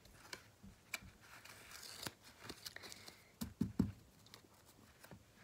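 Faint handling noises of baseball trading cards being sorted and set down: scattered light clicks and short rustles, a little stronger about three and a half seconds in.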